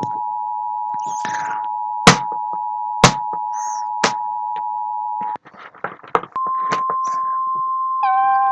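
EAS two-tone attention signal from an emergency alert encoder, two steady tones held together for about five seconds and crossed by three sharp clicks. It cuts off, a few clicks follow, and about six seconds in a single steady 1050 Hz warning-alarm tone begins.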